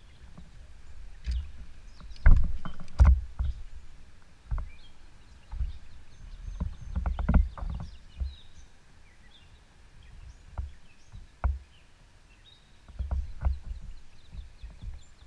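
Irregular knocks and bumps of gear and hands against a canoe, the loudest about two and three seconds in and again around seven seconds, over intermittent low rumbling.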